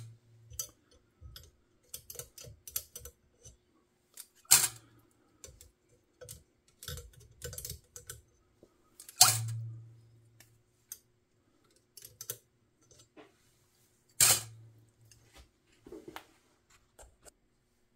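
Pliers clicking and scraping on steel spring clips as the clips are pulled off a soldered bit cheek, with four sharp metallic clacks about five seconds apart.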